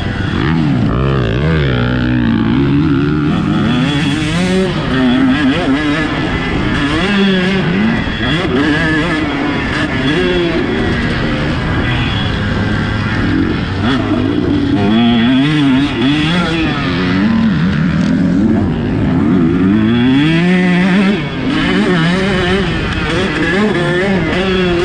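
KTM 150 SX motocross bike's two-stroke single-cylinder engine being ridden hard, its pitch rising and falling again and again as the throttle opens and closes, with a brief dip about 21 seconds in.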